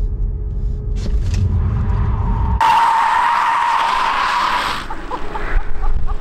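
Tesla Model 3 Performance driven hard in Track Mode: a low road rumble heard inside the electric car's cabin, then, about two and a half seconds in, its tyres squealing and hissing on the runway asphalt for about two seconds before fading to a few short chirps.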